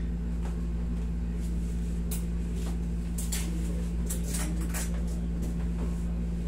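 A steady low hum, with several short scratchy rustles from about two seconds in as hands rub and press over a person's clothed back and hip during a massage.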